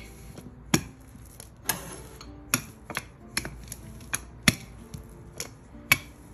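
Wooden rolling pin rolling out dough on a work surface, with a series of irregular sharp clicks and knocks as the pin and its handles are worked back and forth, plus a brief scrape about two seconds in.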